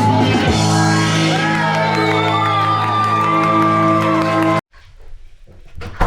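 Loud live band music with singing and crowd shouts in a large hall, cutting off abruptly about four and a half seconds in. A much quieter stretch follows, with a sharp knock near the end.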